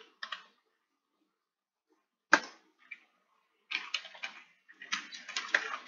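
Computer keyboard keys clicking: a couple of isolated keystrokes, a louder single click a little over two seconds in, then a quick run of typing from about the middle onward.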